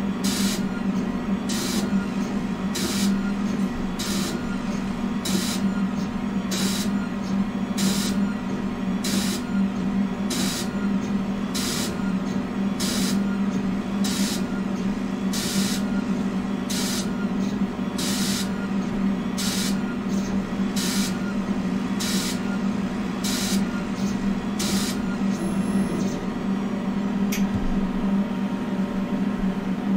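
K40 CO2 laser cutter vector-cutting a Mylar stencil between sheets of wet paper: a steady machine hum with short hissing bursts about every three-quarters of a second as the job runs. The bursts stop a few seconds before the end, and a single click follows.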